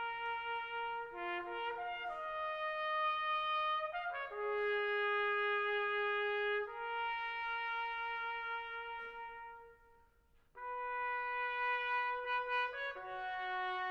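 Slow solo brass melody of long held notes. It breaks off briefly about ten seconds in, then resumes.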